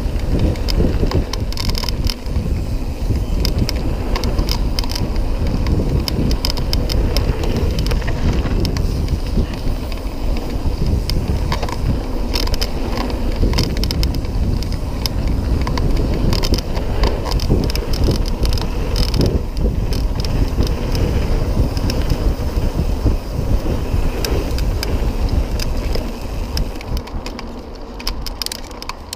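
Mountain bike riding fast down a rough gravel trail, heard from a handlebar-mounted camera: wind buffeting the microphone and tyres rumbling over the dirt, with many sharp clicks and rattles from the bike over bumps. The noise eases off near the end.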